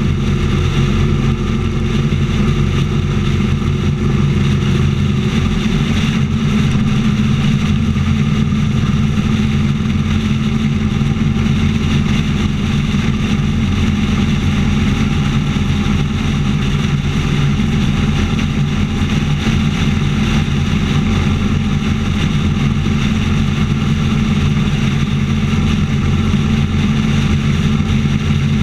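Motorcycle engine running steadily at highway cruising speed, heard from on the bike, with wind and road noise.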